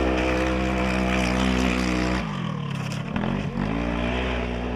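Cross-country rally car engine running hard at steady high revs; the revs drop about two seconds in, then climb back and hold steady.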